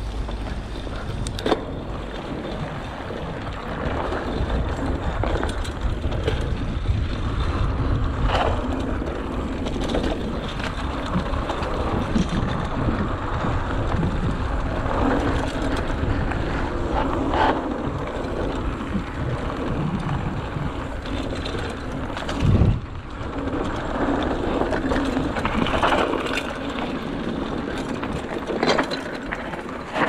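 Mountain bike riding over a dirt trail: tyres rolling on dirt and gravel with wind noise on the microphone, and the bike rattling over bumps. A single loud knock comes about three-quarters of the way through.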